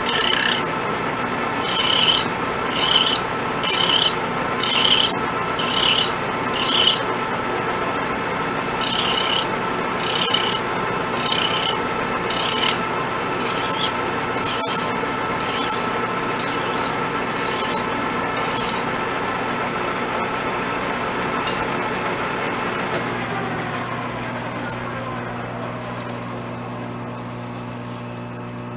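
Hand file stroked across a steel workpiece turning in a Pratt & Whitney Model B 12x30 lathe, about one rasping stroke a second with a short pause, over the lathe's steady running hum. The filing stops about two-thirds of the way through, and near the end the lathe's hum drops in pitch as the spindle slows.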